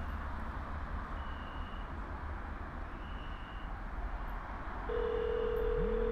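Telephone ringback tone: a steady ring tone starts about five seconds in and holds for about two seconds, while an outgoing call waits to be answered. Before it, faint short high beeps come about every two seconds over a low steady hum.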